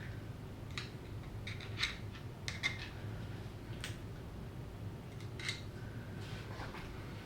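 Light clicks and taps of small gears, bearings and parts being handled on a workbench, scattered irregularly over a steady low hum.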